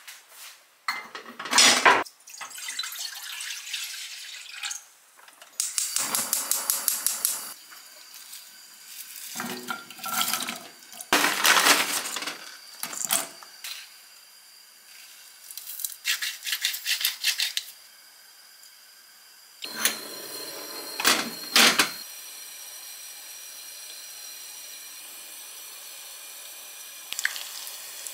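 Kitchen cooking sounds at a gas stove: a string of clatters, pours and rustles as broth and ground dried shrimp go into a pot. Fast, even clicking comes briefly near a quarter of the way in, and a steady hiss takes over about two-thirds of the way through.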